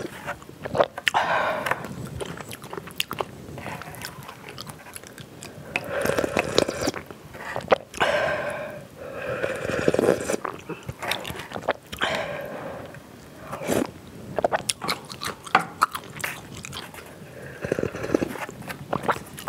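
Close-miked eating sounds: spicy ramen broth being sipped and gulped from the cup and off a spoon, with swallows and chewing, in a string of short irregular slurps and clicks.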